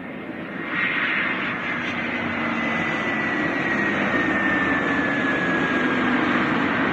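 Jet airliner engines, loud and close, swelling about a second in. A high whine in the engine noise slowly falls in pitch as the plane passes.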